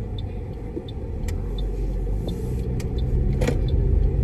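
Car cabin noise while driving: a steady low road and engine rumble that grows louder from about halfway through, with a few light ticks and clicks over it.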